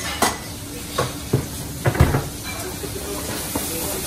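Chicken pieces sizzling in a hot stainless steel frying pan, a steady hiss, with a few sharp knocks and clatters of utensils against metal, the loudest about two seconds in.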